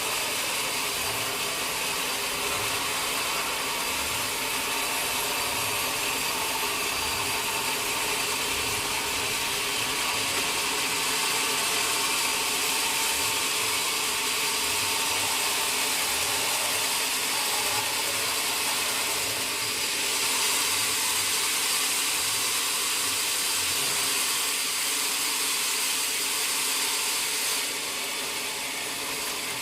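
Sawmill saw and machinery running steadily while cutting mahogany wood, a constant whine over hiss. About two-thirds of the way through the hiss turns brighter for several seconds, then eases near the end.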